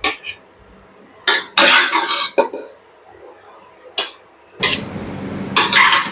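Metal serving spoon scraping and clinking against steel cooking pots and a plate as rice and curry are served out, in a few separate scrapes with short clinks between.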